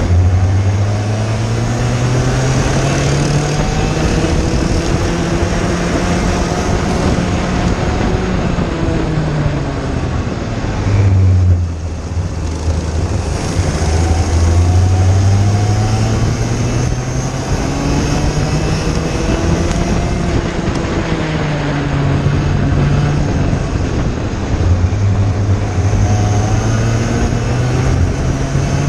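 IAME Cadet kart's single-cylinder two-stroke engine heard onboard at racing speed, its pitch climbing slowly along the straights and dropping sharply several times as the driver lifts for corners, about twelve seconds in most of all.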